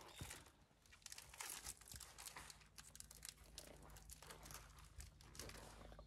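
Plastic bag and gear sacks crinkling and rustling faintly as camping gear is unpacked, in many small irregular crackles.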